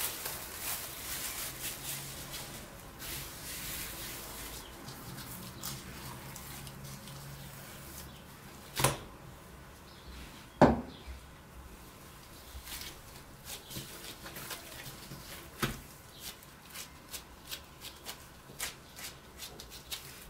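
Plastic cling film rustling and crinkling as it is peeled off a glass bowl of risen dough. Then two sharp thumps as the dough is turned out onto the counter, followed by soft, irregular taps and squishes of gloved fingers pressing the dough flat.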